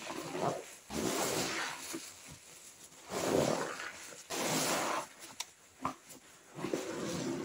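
Wet squishing of pine toilet cleaner and toilet-block mush in about five rough bursts of a second or so each, with a couple of short clicks between them.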